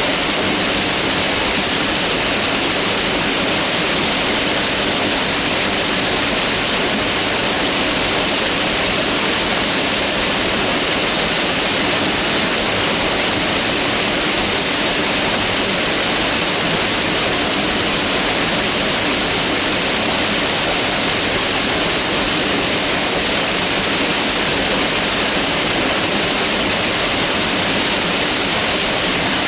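Mountain river rushing steadily over rocks, a constant even roar of water with no breaks.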